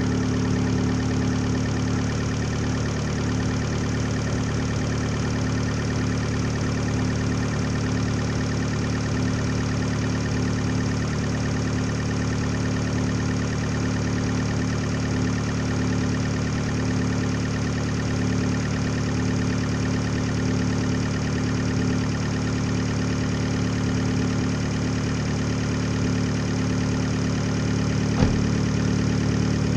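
Fiat 500 Abarth's turbocharged 1.4-litre four-cylinder idling steadily on its first start after a front-mount intercooler install. A single sharp click sounds near the end.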